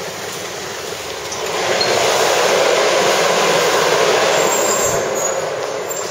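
Air-curtain blower over a store entrance: a loud, steady rush of air that swells about a second and a half in and fades near the end.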